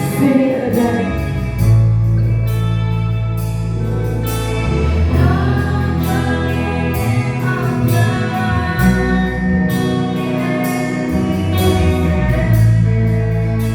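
A live worship band playing a slow praise song, with held bass notes, guitar chords and a voice singing, over a steady beat.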